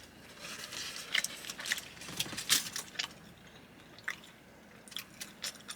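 Faint, irregular wet squishes and small clicks of handling and eating a fried-chicken sandwich.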